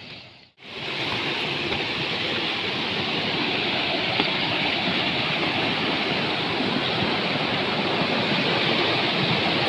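A river rushing, a loud, steady wash of flowing water that cuts in after a brief dropout about half a second in.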